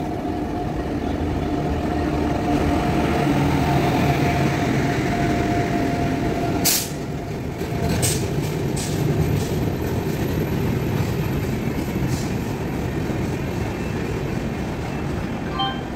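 Express train hauled by a WAP7 three-phase electric locomotive passing at speed: a steady heavy rumble of wheels on rail, with a steady tone that fades by about the middle, then a few sharp clacks in the second half.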